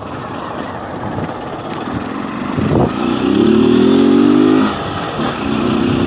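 Motorcycle engine revved: the note rises about three seconds in, holds high for under two seconds, drops back, then climbs again near the end. The exhaust sound has been made louder by fitting a small washer and removing the air filter cover.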